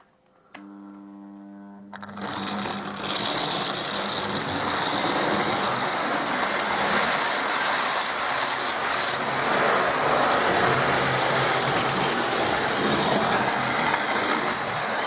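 Hornby model-railway 0-4-0 tank locomotive, a Colman's-livery Holden, hauling six coaches round the track. Its motor gives a short steady hum about half a second in. From about two seconds in, a steady loud rattle of motor and wheels on the rails takes over as the train runs.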